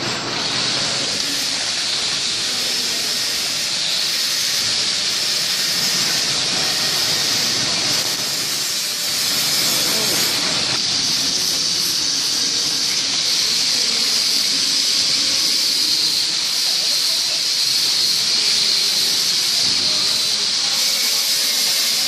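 Fully automatic sleeve shrink-wrapping machine running with a steady hiss, a little louder from about ten seconds in.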